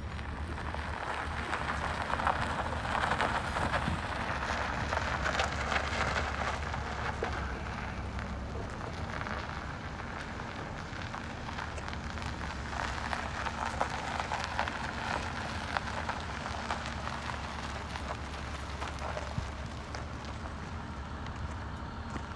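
Chevrolet Tahoe SUV driving slowly on gravel: tyres crunching over the loose stones above a low, steady engine hum. The crunching grows louder twice.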